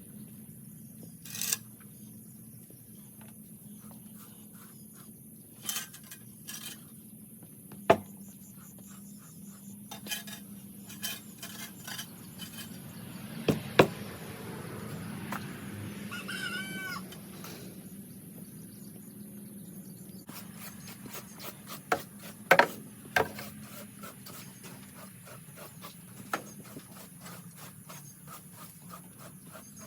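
Scattered knocks and scrapes from barn-cleaning work, the sharpest about 8, 14 and 22 seconds in, with a short pitched animal call a little past halfway.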